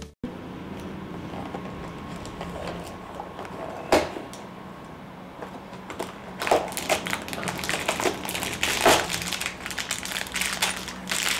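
A cardboard advent calendar and a small wrapped plastic toy figure being opened by hand: irregular crinkles, clicks and taps of cardboard and plastic, coming more often in the second half, over a faint steady hum.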